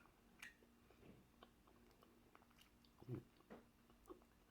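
Faint chewing and wet mouth smacks of a person eating seafood in sauce, with a scattering of small clicks through the pause.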